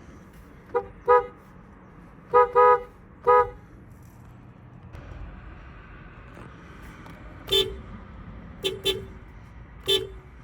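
Honda car horn sounding in short pitched toots: five quick beeps in the first few seconds, then, after a pause, four more near the end.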